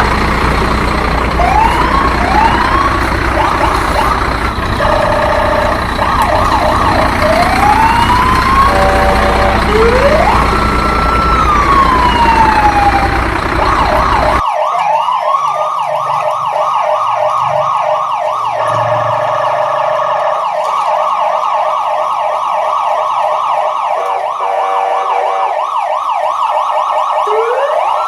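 Electronic siren: scattered rising chirps and a long rising-then-falling wail over a noisy background, then, after an abrupt change about halfway in, a fast repeating yelp that runs on.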